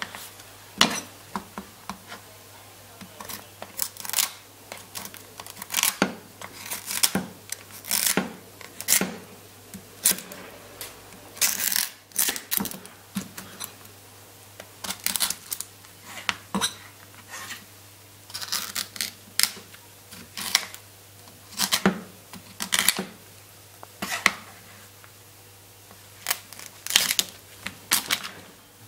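A sharp kitchen knife cutting through and prying off the shell of a boiled king crab leg on a plastic cutting board. Irregular crisp cracks and short crunching scrapes of the shell come about once a second.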